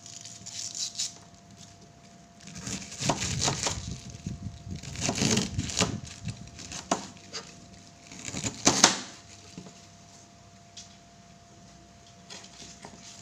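Kitchen knife cutting through a head of cabbage on a plastic cutting board: crisp crunching cuts with knife taps on the board, in several bursts, the loudest just before nine seconds in.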